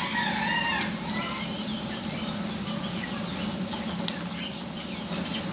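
Chickens clucking in the background, with curving calls strongest in the first second or so, over a steady low hum. A single sharp click about four seconds in.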